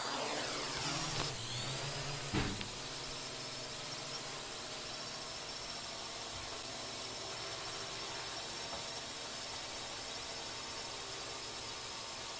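Small quadcopter drone's propeller motors whining, rising in pitch as it lifts off and then holding a steady high-pitched buzz in flight, with a thump about two seconds in.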